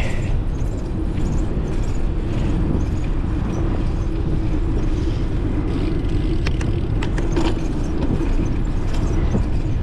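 Steady road traffic noise from cars heard from a road edge, with a few light clicks about two-thirds of the way through.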